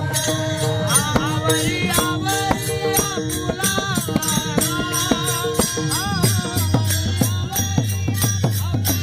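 Male voices singing a Marathi gavlan (warkari devotional song) together, with a pakhawaj drum played by hand and small brass hand cymbals (taal) clashing in a steady beat.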